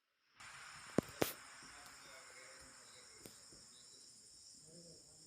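Crickets chirring steadily, with two sharp knocks about a second in and a lighter one later.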